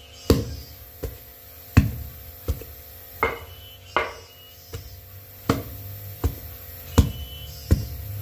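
Wooden pestle pounding a rice-flour, grated-coconut and palm-sugar dough in a mortar, one thump about every three-quarters of a second.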